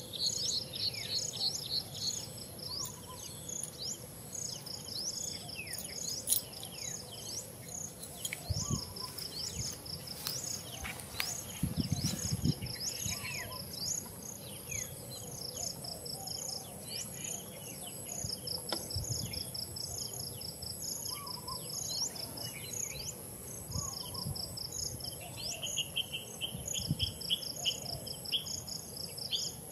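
Outdoor insect and bird chorus: a steady high insect drone with pulsing insect trills repeating throughout, and many short downward-sweeping bird chirps. A few brief low thumps, the strongest about twelve seconds in.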